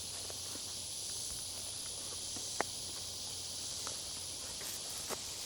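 Steady high-pitched drone of insects in the woods, with a few faint clicks and snaps scattered through it.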